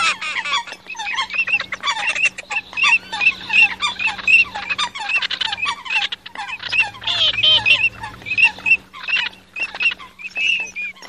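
Eurasian coot and common teal calls mixed together: a continuous run of short, repeated whistled notes and squawks, most of them high and some lower, over a faint steady hum.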